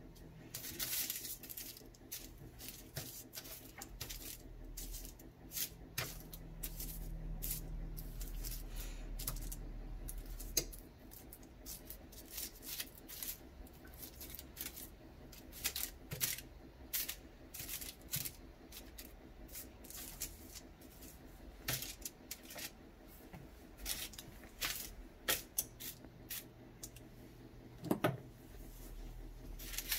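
Metal tongs clicking and scraping on a foil-lined baking sheet as breaded chicken nugget pieces are turned over one by one: irregular light clicks and foil crinkles, several a second at times, over a faint low hum.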